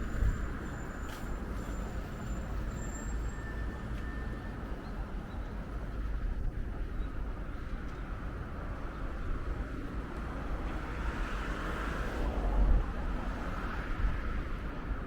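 City street traffic: a steady rumble of passing cars, with one vehicle passing louder about three-quarters of the way through.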